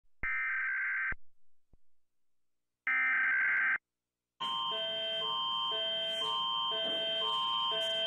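Two bursts of US Emergency Alert System SAME header data tones, each about a second long with a pause between. About four and a half seconds in, a Canadian Alert Ready attention signal starts: a steady high tone over a pattern of lower tones that repeats about once a second.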